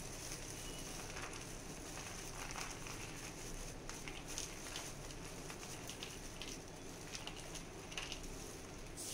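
Cashew nuts poured from a plastic bag onto a plate: a faint, scattered patter of small ticks from the nuts landing and shifting.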